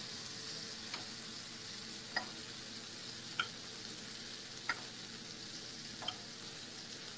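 Butter and minced shallots sizzling steadily in a frying pan as fish fillets are pan-seared and basted, with a light click about every second and a quarter.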